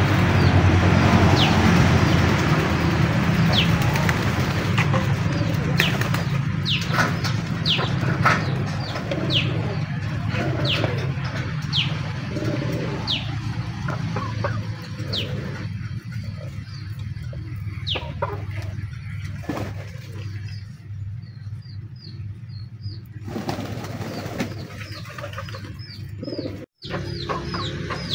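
Pigeons cooing low and steadily, with short high falling chirps of small birds about once a second over the top. The cooing fades out about two-thirds of the way through.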